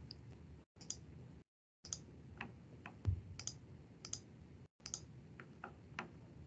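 Faint, irregular clicks from a computer, about a dozen over several seconds, as menus are worked. The low background noise cuts out completely a few times between them.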